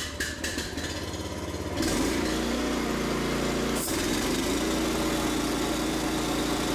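The gasoline engine of a Graco LineLazer IV 250DC line striper being key-started: the electric starter cranks with an even pulse of about three strokes a second, the engine catches about two seconds in, and then it runs steadily with a brief dip near the middle.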